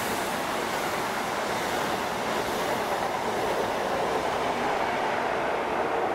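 High Speed Train (InterCity 125) passing at speed: its coaches, then its rear power car, make a steady running noise of wheels on rail.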